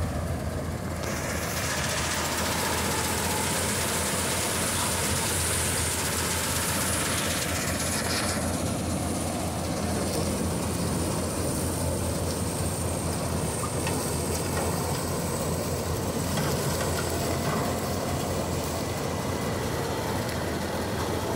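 John Deere 5310 tractor's three-cylinder diesel engine running under load while it drives a tractor-mounted combine harvester cutting and threshing wheat: a steady machine drone with a high whine over it, louder and brighter from about one to eight seconds in.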